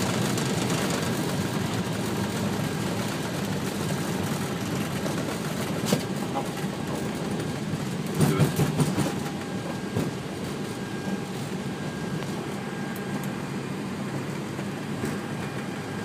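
Cockpit noise of an Airbus A320 in its landing rollout: a steady rumble and roar of engines and rolling wheels that slowly fades as the airliner slows down. There are a few sharp knocks, about six seconds in and again around eight to ten seconds in.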